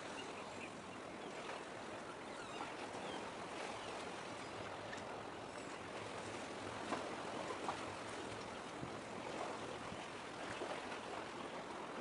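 Small waves lapping and trickling among concrete tetrapods at the water's edge: a steady wash dotted with small splashes.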